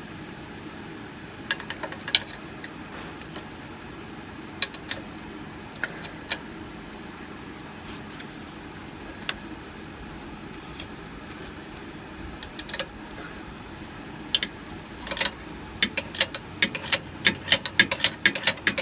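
Scattered tool clicks and knocks, then from about fifteen seconds in a 3/4-inch ratcheting gear wrench clicking rapidly as it backs out a front airbag mount bolt, over a steady low hum.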